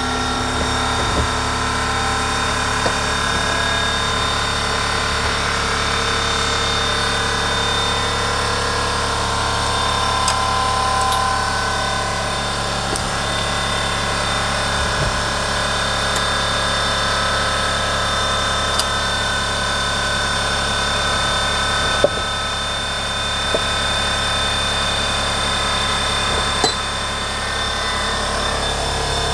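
Air compressor running steadily, a hum with several held whining tones. A few short knocks come from the driveshaft being handled on the bench.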